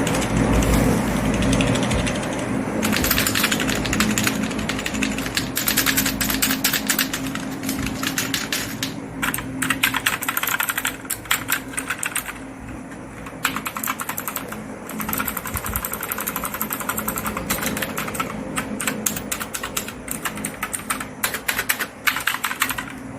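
Computer keyboard keys being typed rapidly in bursts of fast clicks, with a few short pauses, over a steady low hum. A low rumble comes in the first couple of seconds, before the typing gets going.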